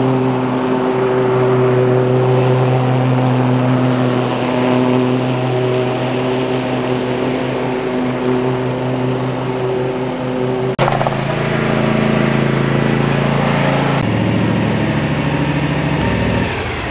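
Cub Cadet Ultima zero-turn riding mower's engine running steadily while it mows through dry leaves and throws them out. Its note shifts abruptly about 11 seconds in and again about 14 seconds in.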